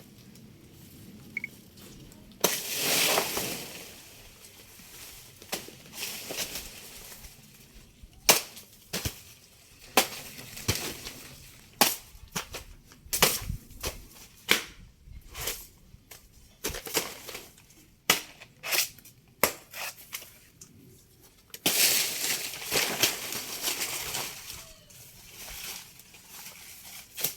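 A blade chopping into a banana tree's soft trunk: sharp, separate blows come about once a second for much of the stretch. Near the start and again near the end there are longer bouts of noisy rustling and crunching.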